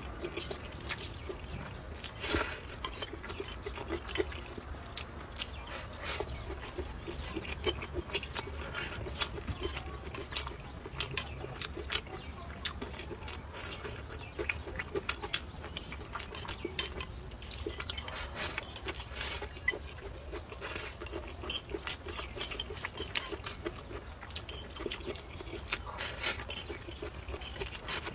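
Close-up eating sounds: noodles slurped and fried soybeans chewed, with many short clicks and scrapes of chopsticks against the plate as the beans are picked up.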